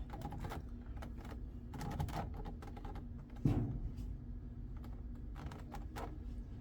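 Scattered light clicks and taps of car door-panel parts being handled and fitted, with one louder knock about three and a half seconds in, over a faint steady hum.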